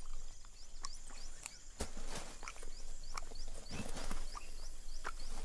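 Soft scrapes and taps of a monitor lizard's claws and snout in sandy soil as it noses a crocodile egg. From about a second in, a high, short chirp repeats steadily in the background, about three times a second.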